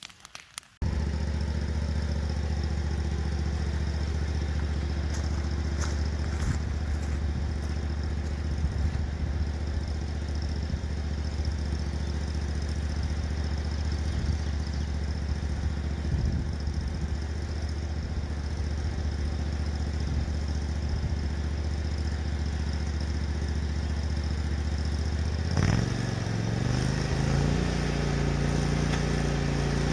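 Lawn mower engine running steadily at a constant speed. It cuts in abruptly about a second in, and its pitch and tone change about 25 seconds in.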